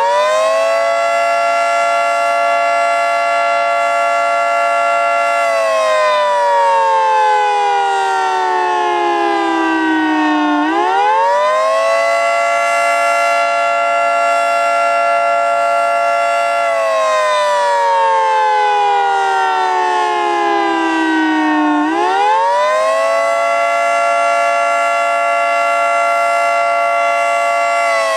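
Federal Signal 2T22 dual-tone outdoor warning siren sounding the Attack signal. It winds up quickly to a steady two-note chord, holds for about five seconds, then winds down slowly over about five seconds, in a cycle that repeats about every eleven seconds.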